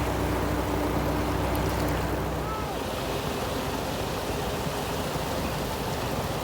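Sea surf and wind noise at the shore, an even rushing wash. A low steady hum sits under it at first and fades out about two and a half seconds in.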